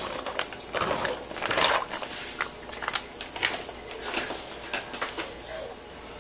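Korean rice-cake sticks (tteok) tipped from a plastic bag into water in a pan: a quick run of plops and clicks with plastic crinkling, thinning to a few scattered clicks after about two seconds, then a steady low hiss near the end.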